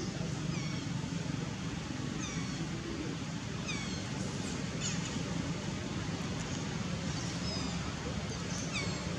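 Baby long-tailed macaque giving short, high-pitched squeaks that fall in pitch, about eight of them at irregular intervals, over a steady low rumble.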